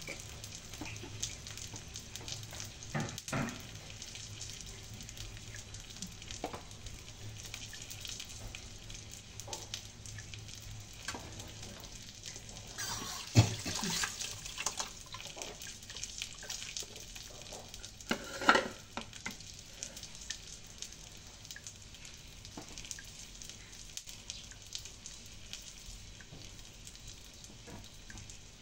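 Food sizzling in a frying pan, a steady hiss, with scattered knocks of a utensil against the pan. The loudest knock comes about halfway through and another a few seconds later.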